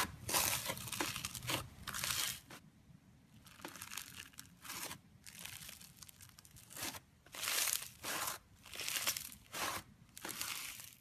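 Slime being squeezed and pressed by hand, giving repeated bursts of crinkling, crackling sounds. It is quieter for a few seconds in the middle.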